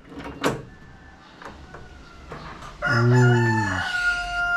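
Rooster crowing: one long, loud crow starting about three seconds in and still going at the end. A short knock about half a second in.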